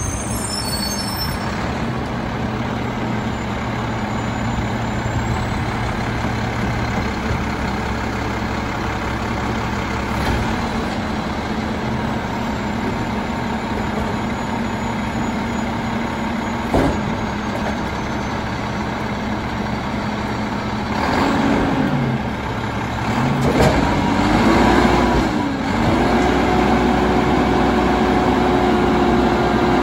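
Mack LEU garbage truck's engine idling steadily, with one sharp knock about halfway through. Near the end the engine is revved up and down twice, then held at a higher, steady speed.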